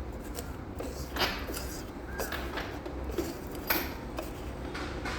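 Scattered light clicks and knocks of sofa parts being handled and fitted during assembly, two of them sharper than the rest, with a brief squeak.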